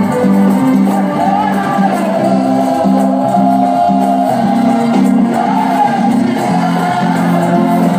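Live gospel music: a man singing into a microphone, with other voices joining, over a band playing a steady rhythm.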